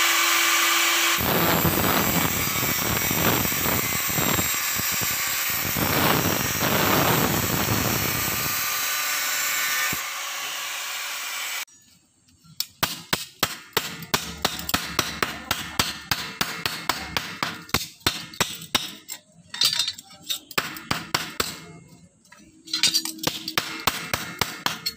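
Electric angle grinder with a cutting disc running and cutting through a metal sheet for about the first eleven seconds, then cutting off suddenly. After that, a long run of quick, light hammer taps on sheet metal.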